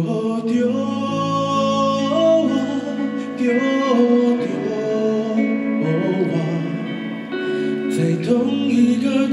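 Live folk-pop song: a man singing a slow melody over electric guitar accompaniment.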